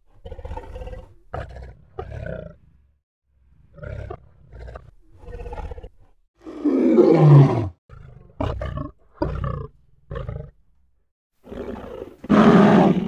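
Lion vocalising: a series of short, deep grunting calls broken by louder full roars, one about seven seconds in that falls in pitch and another near the end.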